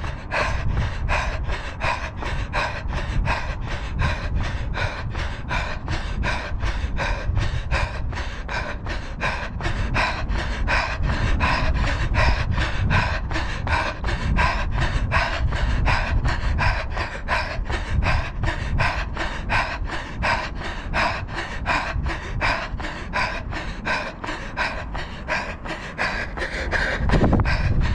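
A runner breathing hard at tempo pace: heavy, rhythmic panting that keeps time at about three strokes a second, over a low wind rumble on the microphone.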